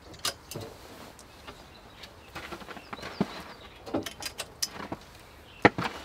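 Clicks, rattles and knocks of a wire-mesh aviary door and its metal frame being handled, scattered irregularly, with the loudest double knock near the end.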